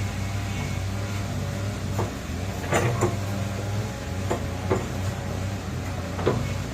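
Excavator's diesel engine running steadily, with about half a dozen sharp metallic clanks from the machine as it works.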